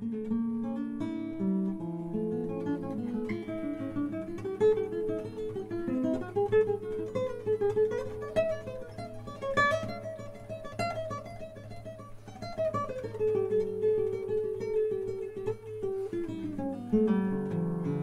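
Background music: a solo acoustic guitar playing a slow classical piece, plucked note by note.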